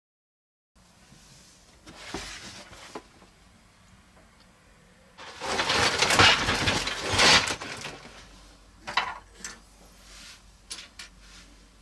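A cardboard toy-kit box being handled and opened, with a loud stretch of scraping and rustling midway as the box is tipped and its contents shift, followed by a few light clicks of plastic parts being set down.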